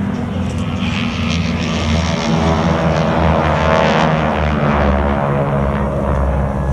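Propeller-driven aircraft engines droning as they fly past overhead, with a shift in pitch around the middle as they go by.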